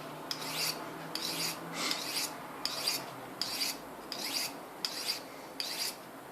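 A dull kitchen knife's blade drawn again and again through a Victorinox pocket ceramic sharpener: short rasping strokes of steel on ceramic, evenly paced at about one every 0.7 seconds.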